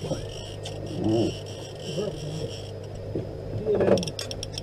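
Steady low hum of the boat's motor, with muffled voices in the background and a few sharp clicks near the end.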